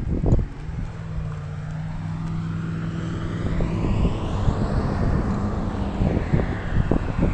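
A motor vehicle passing by: a steady engine drone that swells to a peak about halfway through and then eases off. There are a few knocks about a second in and near the end.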